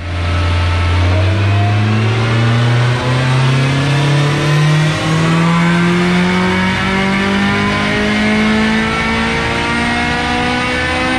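Turbocharged Acura Integra's B-series four-cylinder (B20 block, Precision 6262 ball-bearing turbo) making a pull on the chassis dyno. Its note climbs steadily in pitch from mid revs toward redline under load.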